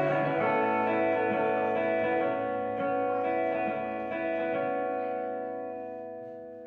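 Electric guitars letting their last chord ring out and slowly fade away at the end of a song.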